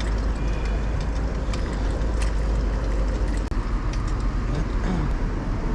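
City street traffic heard from a bicycle riding along a busy avenue, with a steady low rumble beneath it.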